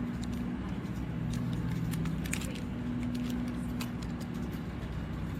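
Steady low mechanical hum with a few light clicks and handling noises.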